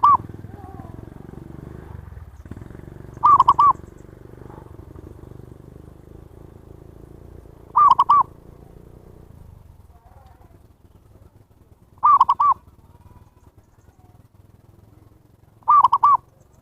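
Zebra dove (perkutut) cooing: a short phrase of two or three arched coos, repeated five times about every four seconds. A low rumble runs underneath for the first ten seconds or so.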